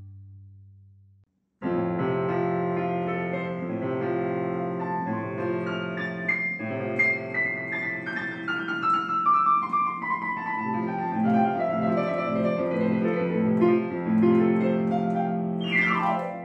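Electronic keyboard played with a piano sound: a melody over sustained chords, with a quick falling run of notes near the end. It starts after a short silent gap, as the last of an intro jingle dies away.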